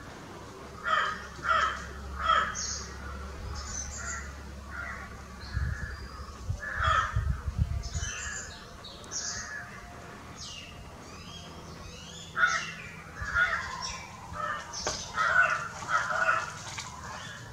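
Birds calling outdoors in repeated short bursts, with thinner, higher chirps scattered among the lower calls. A low rumble runs briefly about six to eight seconds in.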